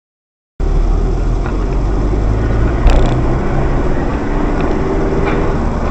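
Car driving, heard from inside through a dashcam: a steady low road and engine rumble that starts suddenly about half a second in. A short sharp knock stands out about three seconds in.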